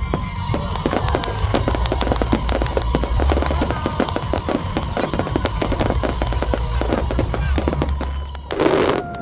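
Fireworks crackling in a dense, rapid stream of small pops over a low rumble, with music playing underneath. A louder burst comes near the end.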